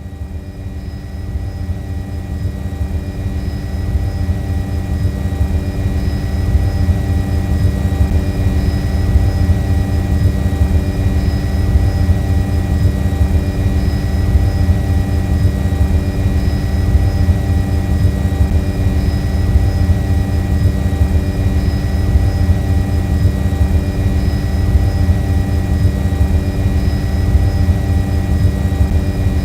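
A flying drone's motors and propellers humming steadily as one held, pitched drone over a low rumble. It grows louder over the first few seconds, then holds level.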